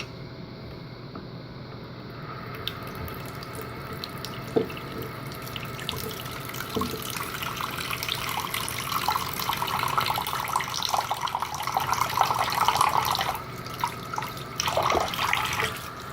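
Water tap running into a sink, filling a container with warm water. The flow starts a few seconds in, grows louder, and stops shortly before the end.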